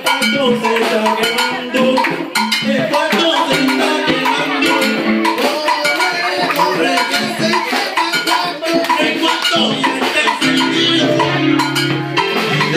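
A live Cuban band playing salsa music.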